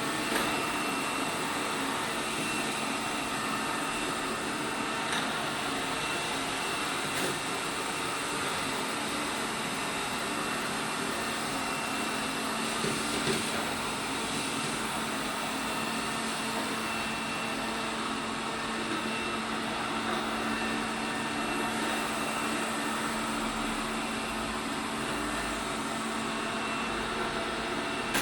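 ELARI SmartBot Lite SBT-002A robot vacuum cleaner running, with a steady hum and whine from its motor and brushes and a few faint knocks.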